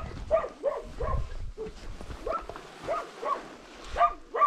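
Dog barking repeatedly in short, quick barks, two or three a second, at the person filming.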